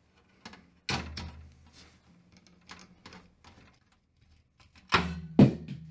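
Hand screwdriver driving radiator mounting screws through a PC case's metal mesh top panel: scattered small clicks and scrapes, with two louder sharp knocks near the end.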